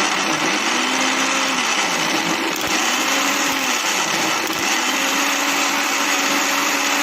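Electric mixer grinder running with its small jar, churning its contents. A loud, steady motor whirr, with a lower tone in it rising and falling a few times.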